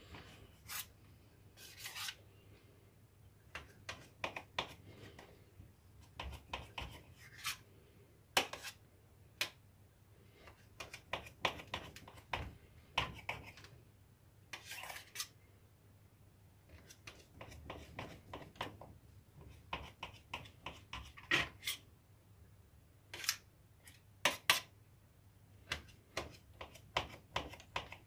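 Knife cutting soft cheese into strips on a metal baking tray: the blade makes irregular light clicks, taps and scrapes against the tray.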